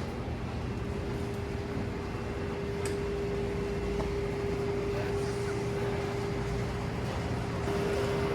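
Warehouse store ambience: a steady machinery hum with a low rumble and one held mid-pitched tone, with a few faint clicks.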